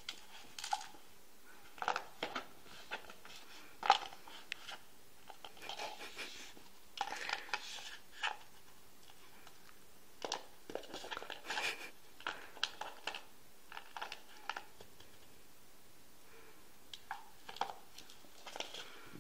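Light plastic bowl knocked, shoved and scraped across a carpet by a Siberian weasel playing with it: irregular clicks, knocks and rustling scrapes, the loudest knock about four seconds in, with a quieter stretch in the last third.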